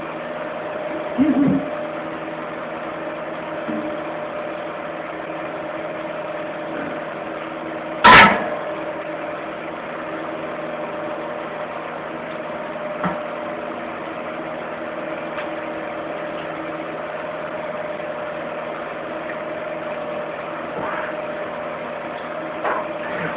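Element electric fan heater running with a steady hum and whir. A single loud knock about eight seconds in, with a few faint ticks later.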